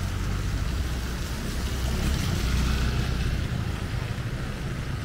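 Rainy street traffic: an even hiss of rain under a low engine rumble that swells about two to three seconds in, as a vehicle passes close by.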